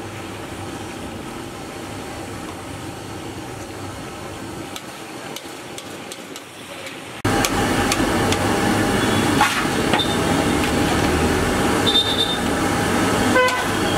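Potato slices deep-frying in a large steel kadai of oil, a steady sizzle that becomes much louder about seven seconds in, with a couple of metal clinks from the slotted ladle against the pan. A vehicle horn toots briefly near the end.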